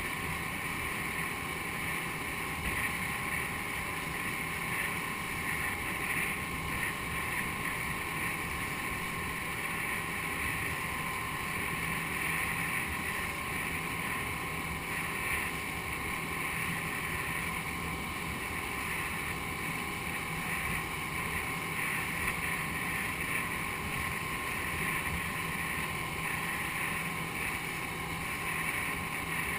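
The motor of a rigid inflatable boat running steadily at low speed, an even hum with a constant pitch, with wind buffeting the microphone.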